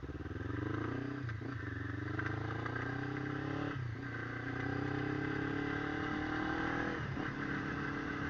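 Motorcycle engine accelerating up through the gears. The revs climb, drop briefly at each of three upshifts (about a second in, near the middle and near the end), then hold steady.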